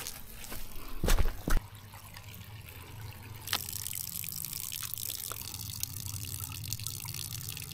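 Water trickling from a small spring, then filtered water running into a bottle from a squeezed Sawyer filter pouch, with two sharp handling knocks about a second in.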